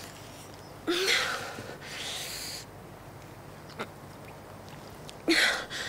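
A woman in labour gasping and breathing hard in pain: a sharp gasp with a short rising cry about a second in, a long hard breath out, and another gasp near the end.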